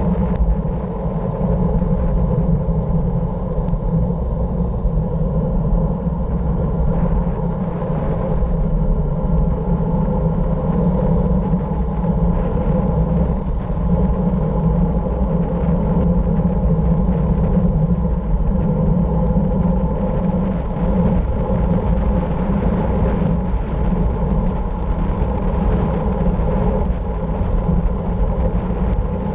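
Steady wind rush and road rumble from a fast descent, a loud, unbroken low roar with no let-up.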